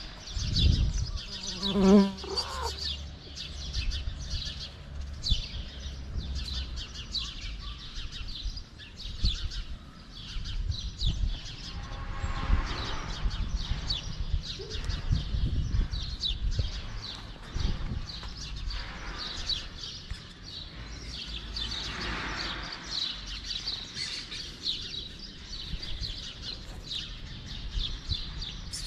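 Many small birds chirping busily and without a break, with a low rumble of handling underneath. About two seconds in there is a brief low pitched call, the loudest moment.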